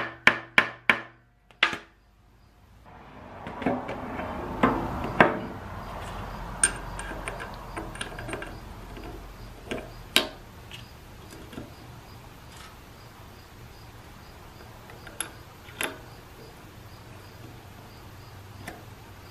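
A hammer tapping a small tapered pin into a hole in a 47RE transmission valve body to plug it flush: a few quick sharp taps in the first second and one more shortly after. Then scattered light clicks and clinks of small metal parts being handled.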